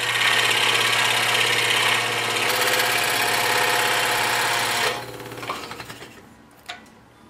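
Scroll saw running and cutting through quarter-inch oak, a steady buzz over a low hum. About five seconds in the sound stops and fades out over the next second.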